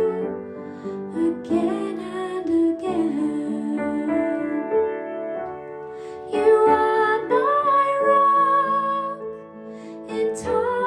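Gentle slow song: a woman singing long held notes over piano accompaniment.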